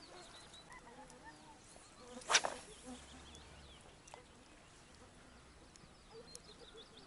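Birds calling and chirping, with one short, sharp noise about two seconds in that is the loudest thing heard.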